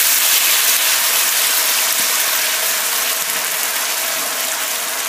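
Diced raw potatoes sizzling in hot canola oil in a skillet: a loud, steady frying hiss that eases slowly as they settle in the oil.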